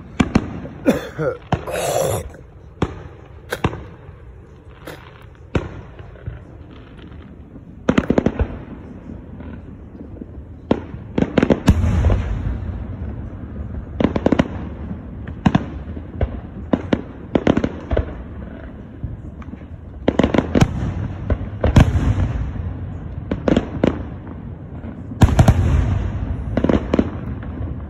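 Fireworks going off in a long run of sharp bangs and pops, some bunched in quick clusters, with a low rolling rumble after the bigger ones.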